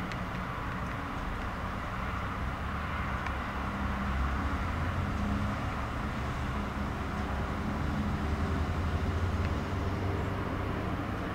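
Low, steady rumble of a cargo ship's diesel engine under way. It swells a few seconds in and eases near the end, over a steady background hiss.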